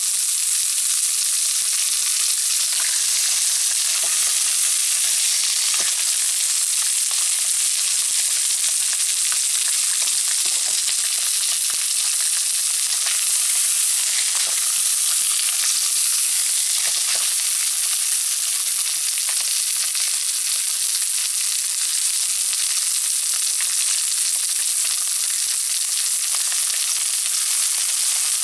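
Scored pork belly frying in its own fat in a hot pan: a steady, high sizzling hiss with scattered small crackles and pops.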